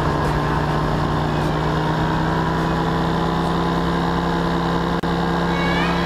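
Paramotor engine running at a steady pitch in flight. The sound cuts out for an instant about five seconds in.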